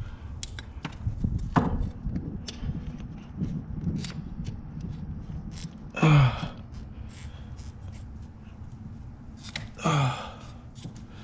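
Scattered small clicks, knocks and scrapes of a screwdriver and parts being worked loose in a car's engine bay. Two short strained grunts about 6 and 10 seconds in, each falling in pitch, sound like the effort of prying a stuck part free.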